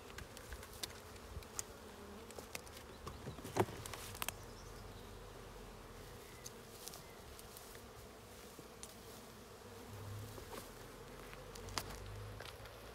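Honeybees buzzing around an open hive, a steady hum, with scattered clicks and one sharper knock a little over a third of the way in as the hive roof is set on.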